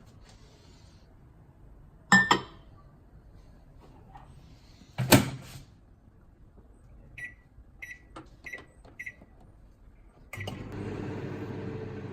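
Microwave oven: two loud clunks, then four short keypad beeps, then a click as it starts and a steady running hum near the end.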